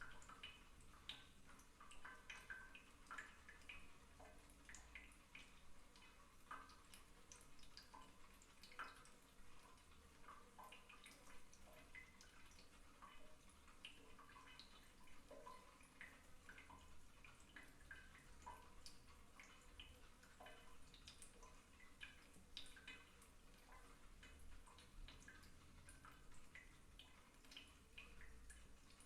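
Slow, irregular water drips from a bathtub faucet plinking into the bath water, with small water movement, heard faintly in a small tiled room.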